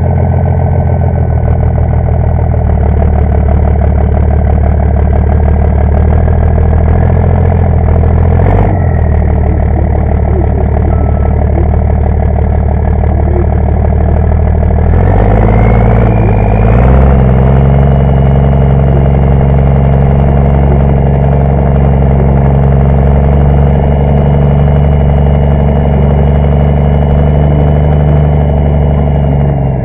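Pulling truck's engine running loud right beside its twin hood-mounted exhaust stacks, first at a steady low speed, then revving up about halfway through and holding a higher, steady speed. A high whine rides above the engine and rises with the revs.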